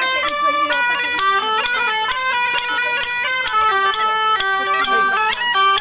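Instrumental background music: a quick melody of short notes over a steady, unbroken drone.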